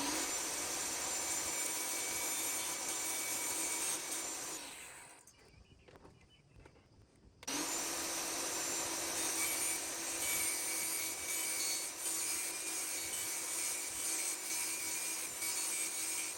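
Table saw blade running and cutting through a thin sheet of decorative aluminum: a steady rasping whine. It dies away about five seconds in, is quiet for a couple of seconds, then starts again abruptly and runs on.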